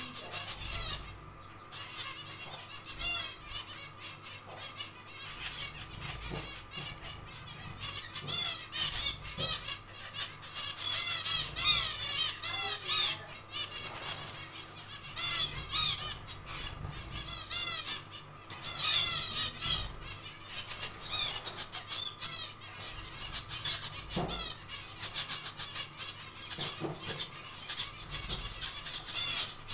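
Zebra finches calling: many short calls from several birds, repeated over and over and busiest in the middle, over a faint steady hum.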